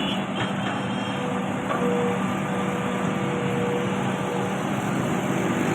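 Excavator engine running steadily under load, with a faint steady whine in the middle.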